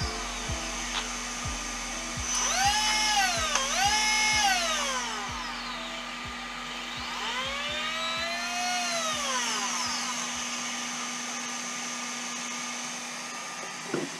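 TP 5860 brushless RC motor spinning with no load, its whine rising and falling in pitch as the throttle is blipped: twice quickly, then once slower and longer. This is a test run of freshly soldered 8mm bullet connectors, and the motor runs fine. A steady hum sits underneath, with a short knock near the end.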